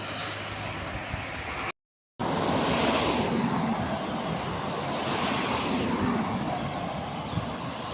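Road traffic passing close by: a steady rush of tyres and engines, with two vehicles swelling past about three and five and a half seconds in. The sound drops out completely for half a second near the start.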